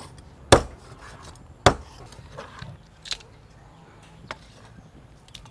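Meat cleaver chopping pork ribs on a wooden cutting board: two heavy chops about a second apart, then a few lighter knocks.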